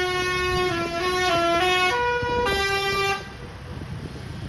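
Bus 'telolet' musical horn of the Basuri type playing a tune of held notes stepping up and down, cutting off about three seconds in; engine and road noise carry on after it.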